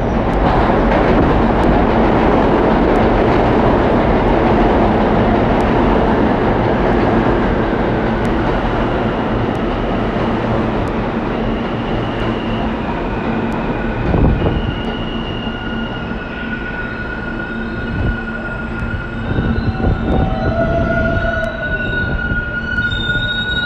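R160 subway train running into an underground station: a loud rumble of steel wheels on rail that gradually eases as the train slows, with a single knock about halfway through. High brake and wheel squeals rise in the second half, several whining tones at once near the end as it comes to a stop.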